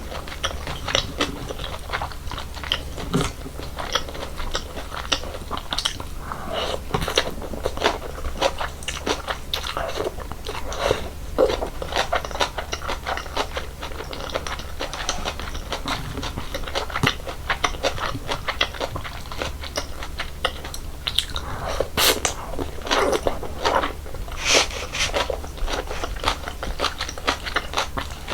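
Close-miked eating of cold naengmyeon noodles in icy broth: continuous chewing and crunching, with many small irregular clicks and crackles.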